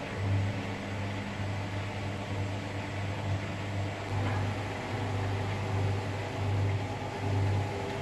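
Hotpoint front-loading washing machine running near the end of its cycle: a steady low motor hum that swells and fades in regular pulses.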